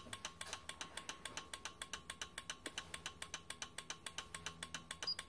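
An automotive relay clicking on and off in a rapid, even rhythm, roughly ten clicks a second, as it pulses a 21-watt bulb filament.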